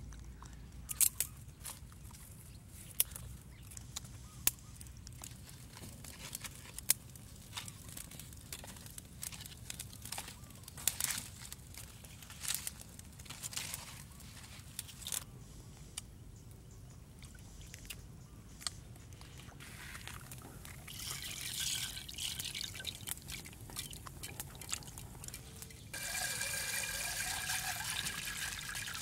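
Scattered sharp clicks and snaps. Then, near the end, a sudden steady rushing pour: raw rice grains streaming into a clay pot of water.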